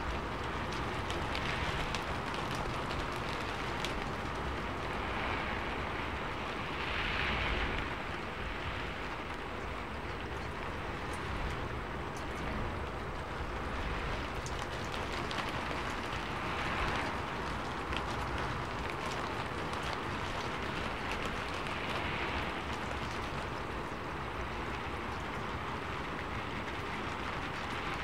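Steady hiss of falling rain, with soft swells in the sound every few seconds.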